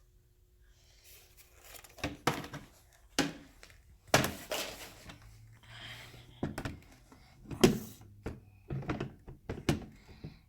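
Plastic parts of a toy kitchen play set knocking and clunking as they are handled and pushed into place, a string of irregular knocks with a few louder clunks.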